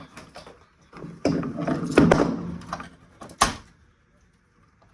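Plastic casing and circuit-board parts of a radio-cassette-CD player being handled while it is taken apart: scattered clicks and a stretch of scraping and rattling, then one sharp knock about three and a half seconds in.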